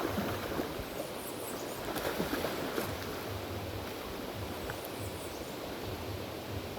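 River water rushing steadily, with wind on the microphone.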